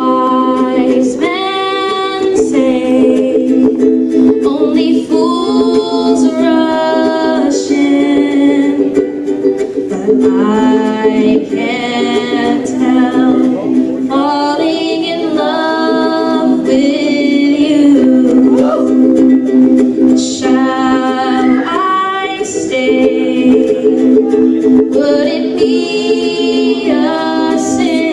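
A woman singing a song into a microphone to ukulele accompaniment; her voice comes in about a second in over the ukulele chords.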